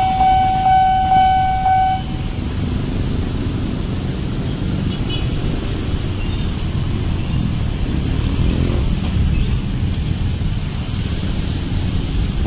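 Railway level-crossing warning bell ringing in steady repeated tones, stopping about two seconds in. After that comes the low running of many motorcycle and car engines as traffic crosses the tracks.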